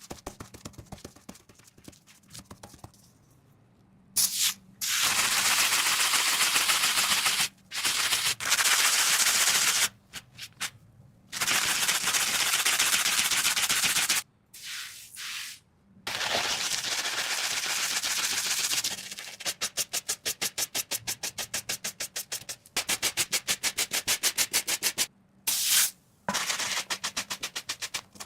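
Abrasive scrubbing on corroded metal, as rust and grime are worked off an old knife. First come several long stretches of steady scraping that start and stop abruptly. Then come quick back-and-forth strokes, about four or five a second.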